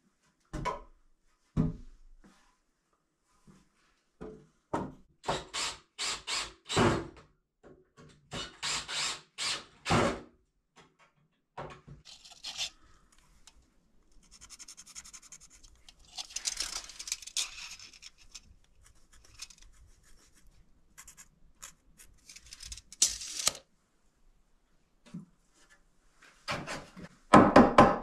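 Hand construction work on wooden framing: timber boards knocking and thunking as they are handled, then scraping and rubbing while measuring and marking, and near the end a rapid series of loud strikes on the wood.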